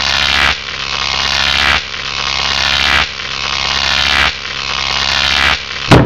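A harsh noise repeating in pulses about every 1.2 seconds, each swelling louder before cutting off, over a steady low hum. A sharp bang near the end: the microwave door slamming shut.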